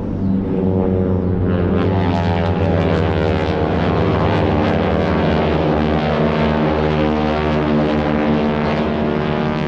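Several North American T-6 Texan trainers' Pratt & Whitney R-1340 radial engines and propellers running at power as the formation pulls up into a climb. The sound is a steady drone made of many even tones, and it grows louder and harsher about a second and a half in.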